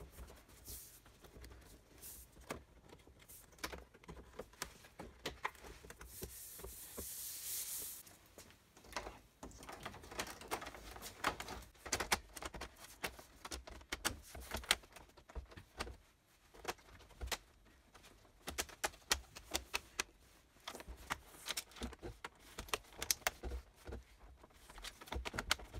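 Hands fitting an LED TV's diffuser sheet and plastic panel frame: irregular clicks, taps and knocks of plastic and metal parts, with a short sliding rustle about six seconds in.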